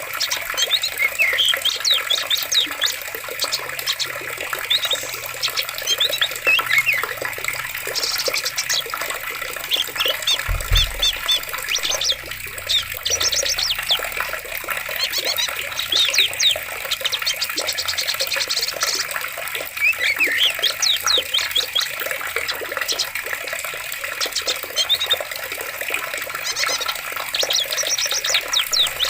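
Steady running water with many small birds chirping over it in quick, repeated calls. There is a brief low thump about ten seconds in.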